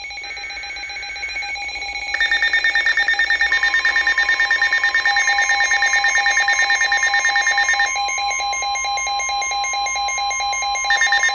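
Emergency alert receivers sounding the alert for a severe thunderstorm warning: several overlapping electronic alarm tones, with a rapid beeping that starts about two seconds in, breaks off for a few seconds and returns near the end. A steady weather-radio warning tone joins about three seconds in.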